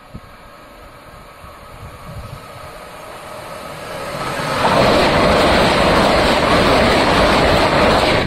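GWR Class 800 IET high-speed train approaching and passing close by at speed: a rushing noise that grows steadily louder, is loud for the last few seconds, then cuts off abruptly.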